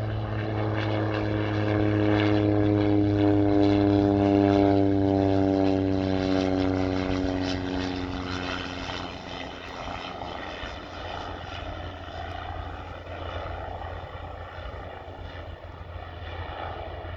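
Jet airliner passing close by: its engine tone slides slowly downward in pitch as it goes past, is loudest a few seconds in, then fades into a low, steady rumble.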